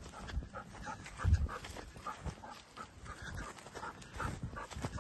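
A dog panting in quick, rhythmic breaths while it tracks on the leash, with low thumps from movement through the grass, the loudest about a second and a half in.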